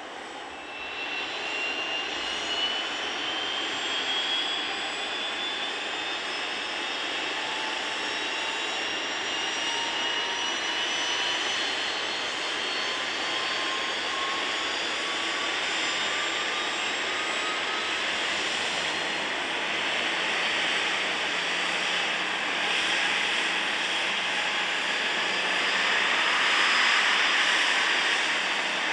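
Turbofan engines of a twin rear-engined business jet whining on the ground, the whine rising slowly and steadily in pitch as an engine spools up, over a steady rush of jet noise that grows a little louder near the end.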